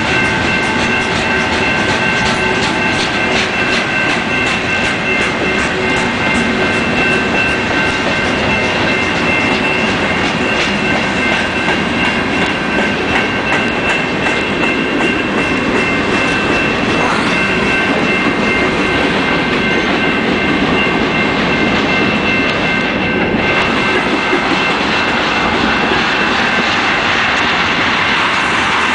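Freight train of tank cars, boxcars and hoppers rolling past: a steady rumble with the clickety-clack of wheels over rail joints, plainest in the first dozen seconds. A steady high-pitched whine sits over it throughout.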